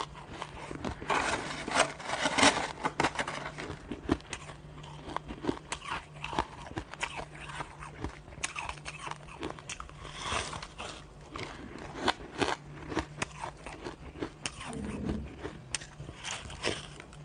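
Coloured shaved and crushed ice bitten and chewed close to the microphone: a run of irregular crisp crunches, loudest about two seconds in.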